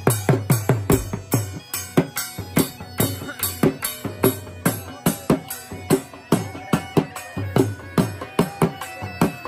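Background music with a steady, fast drum beat of about three strokes a second under a melody line.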